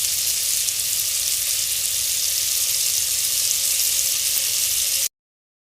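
Butter sizzling as it melts in a hot pan, a steady crackling hiss that stops abruptly about five seconds in.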